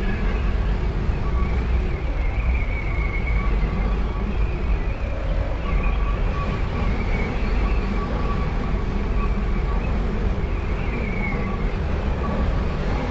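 Synthesized space-ambience drone: a steady deep rumble with faint high tones that waver above it.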